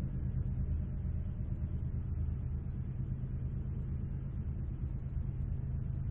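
A steady low hum and rumble with no distinct events in it.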